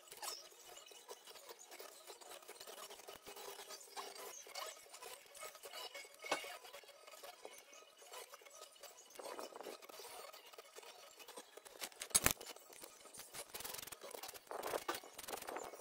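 Faint metallic clicks and scrapes of hand tools and small parts being handled at a van's front wheel hub, with one sharp metal click about three-quarters of the way through.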